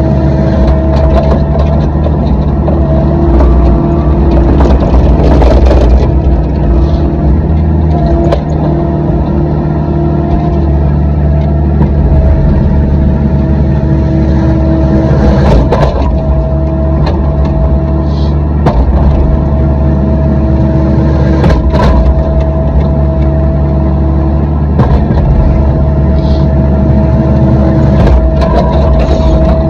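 Heavy-equipment diesel engine running steadily at working speed, its pitch shifting slightly now and then, with a few scattered sharp knocks.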